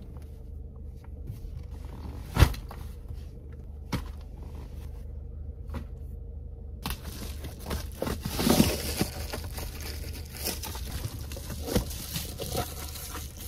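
Bags and gear being handled inside a car: a sharp knock a couple of seconds in, then rustling and crinkling of fabric and bags from about seven seconds on, with scattered light knocks, over a low steady hum.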